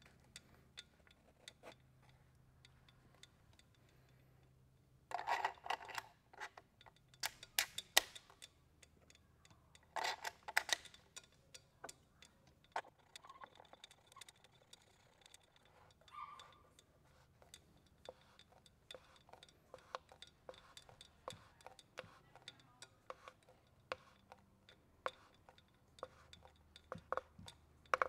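Hand-fitted form tool being pushed and twisted into a carbon frame's head tube: many small clicks and rubbing sounds, with louder scraping bursts about five, seven and ten seconds in.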